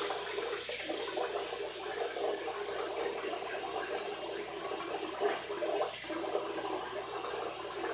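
Bathroom sink tap running with irregular splashing as a face is rinsed of shaving cream.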